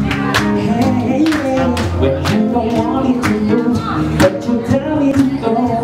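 Live acoustic band music: a male and a female singer on microphones over acoustic guitar and bass, with a steady beat of about two strokes a second.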